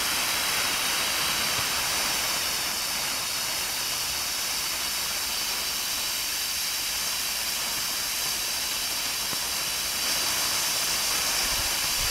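Ground fountain firework spraying sparks with a steady hiss that grows a little louder about ten seconds in.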